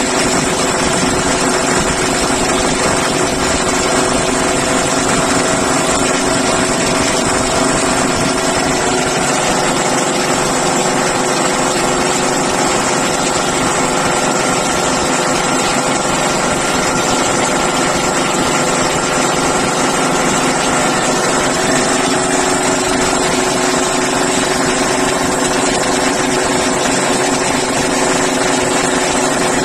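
High-pressure breathing-air compressor running steadily while charging an SCBA cylinder, a loud, even machine drone.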